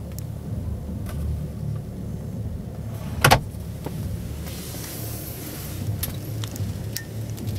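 An Audi S4 Avant's glove box lid is pushed shut with one sharp double knock about three seconds in. A steady low rumble of exhibition-hall background noise runs underneath, with a brief hiss and a few faint clicks of hands on the trim.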